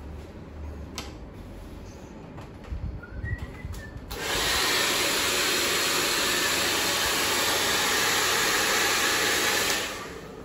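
Hand-held hair dryer switched on about four seconds in, blowing a loud, steady rush of air for about six seconds, then switched off; used to blow cut hair off the client's neck after the haircut.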